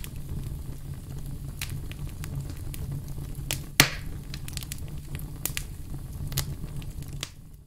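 Fireplace fire crackling: irregular sharp pops over a low steady rumble, the loudest pop just under four seconds in.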